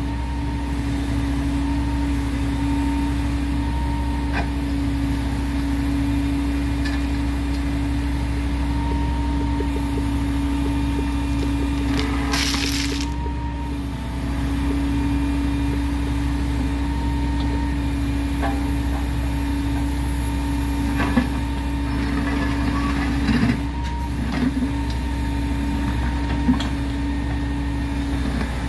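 Engine of heavy track-work machinery idling steadily, with a short burst of hissing about twelve seconds in and a few sharp knocks in the second half.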